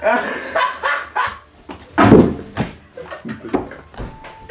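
A man's short laughing yelps and shouts in several bursts, the loudest about two seconds in.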